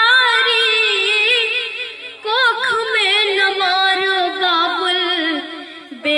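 A young girl singing into a microphone, holding long notes with a wavering pitch. She breaks off briefly about two seconds in and again near the end.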